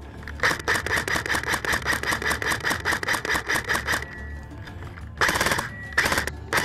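Electric airsoft MP5 firing on full auto: a long rapid burst of about three and a half seconds with the gearbox whining under the shots, then two short bursts. This is suppressive fire.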